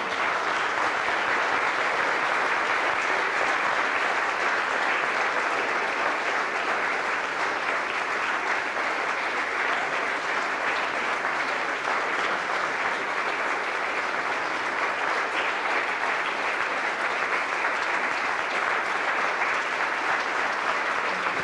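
An audience applauding steadily and without a break, many hands clapping at once.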